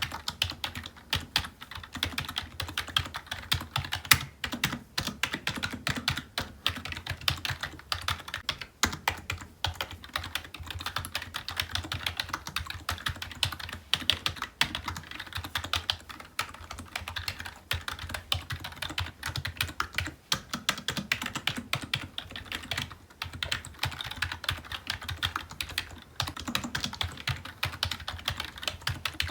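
Typing on a computer keyboard: a steady stream of clacking keystrokes, many a second, with no pauses.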